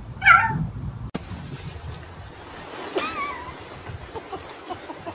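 A domestic cat gives one short, loud meow near the start. After it comes a quieter outdoor background, with a brief warbling high-pitched tone about three seconds in.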